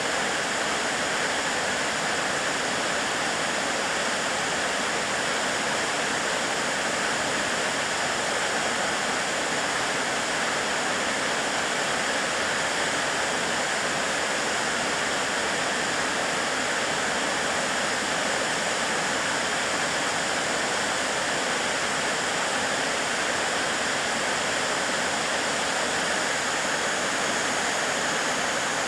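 Narada Falls, a waterfall on the Paradise River, pouring steadily: an even, unbroken rush of falling water.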